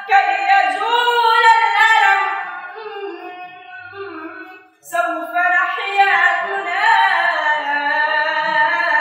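A boy's solo voice singing the chorus of an Arabic nasheed in long, slowly bending held notes. The voice fades and breaks off briefly about halfway through, then comes back in.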